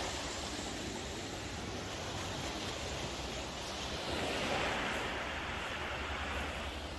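Sea waves washing in and out on a stony beach, a steady rushing with a swell as a wave comes in about four seconds in.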